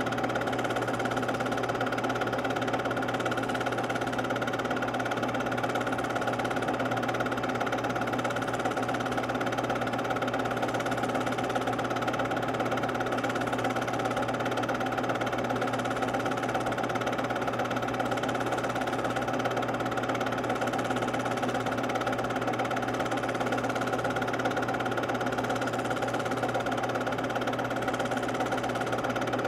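Home-movie film projector running: a steady mechanical whir and hum that does not change.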